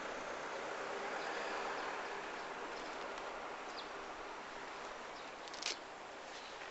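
Steady rushing outdoor background noise with a few brief high bird chirps, the loudest about two-thirds of the way through.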